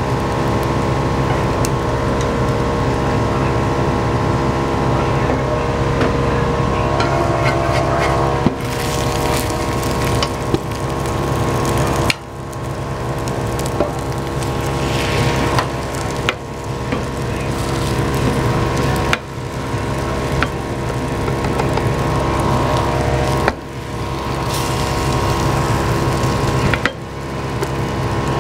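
Kitchen exhaust fan running loudly, a steady hum with rushing air, over egg sizzling in a square omelette pan. Wooden chopsticks click now and then against the pan as the omelette is rolled, and beaten egg is poured into the hot pan partway through.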